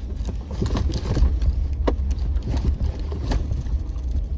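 Jeep crawling over rocks in four-wheel-drive low range: a steady low engine and drivetrain rumble, with scattered knocks and clunks as the tires and suspension climb over the rocks, about half a dozen in all.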